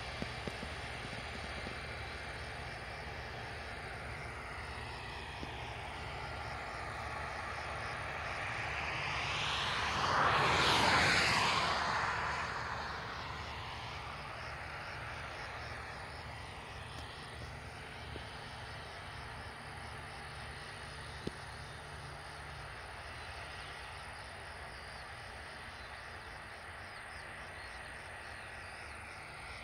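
Distant New Holland CX740 combine harvesters running at work, a steady low drone. About ten seconds in, a louder rushing sound swells and fades over some four seconds as something passes close by.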